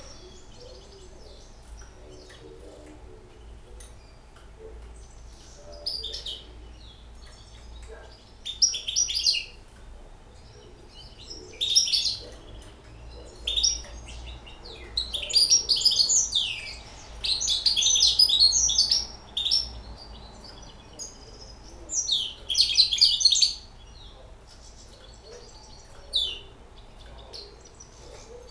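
A young caged hybrid finch singing in bright, twittering phrases that come in about ten separate bursts, the longest about two seconds, with short pauses between.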